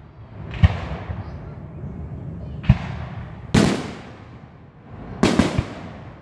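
Aerial fireworks shells bursting: several sharp booms, each trailing off in a rolling echo, ending with a quick run of three bangs near the end.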